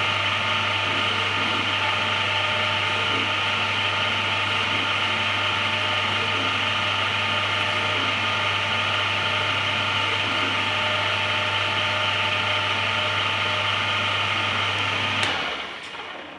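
Converted Belfex BF 520C mini lathe running under CNC control while turning a small bushing: a steady motor hum with a constant high whine, which cuts off about a second before the end as the machine stops.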